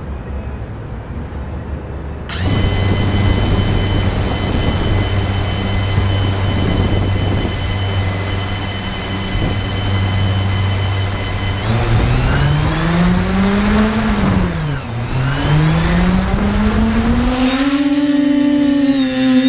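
TBS Discovery Pro quadcopter's brushless motors, close to the onboard camera: a steady idle whine starts about two seconds in, then the pitch rises as the throttle goes up and the drone lifts off. The pitch dips briefly, climbs again and settles at a higher, steady hover pitch near the end.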